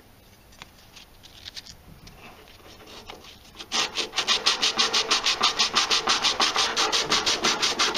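Sanding stick worked quickly back and forth in the slot of a hardwood phone stand, giving a rapid, even run of scratchy rubbing strokes that starts about four seconds in, after a few faint handling sounds.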